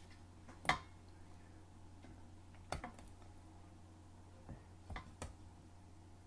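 A few scattered knocks and clicks, about five in all, as seasoned chicken wings are set one by one into an air fryer basket, over a steady low hum.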